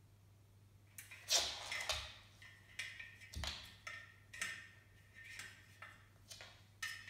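A cat scrabbling and tumbling on a laminate floor around a table leg: its claws and body make an irregular run of scratchy scuffs and taps, some with a brief ring, and a few soft thumps.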